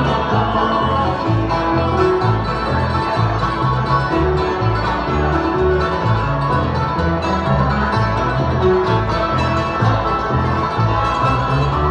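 Instrumental bluegrass music: banjo and guitar playing, over a steady walking bass line.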